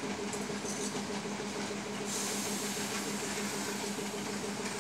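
Sri Lanka Railways M4 class diesel locomotive's engine idling with a steady low hum. A higher hiss joins about two seconds in.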